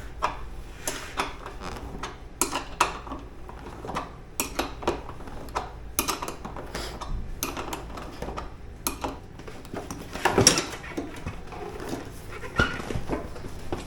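Irregular metallic clinks and clicks of a wrench working the single 12 mm seat bolt on a motorcycle, with a louder short sound about ten and a half seconds in.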